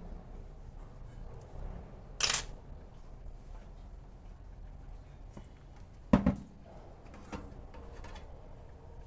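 Sharp clicks and knocks of small plastic parts being handled and fitted by hand: one crisp click about two seconds in, a louder double knock about six seconds in, and a lighter click shortly after.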